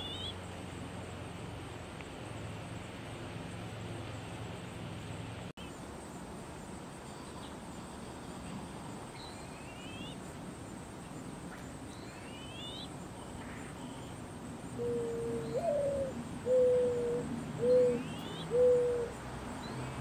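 Mourning dove singing its perch song about 15 seconds in: a low coo, a coo that swoops up and falls, then three shorter steady coos. Faint short rising chirps of small birds come a few times.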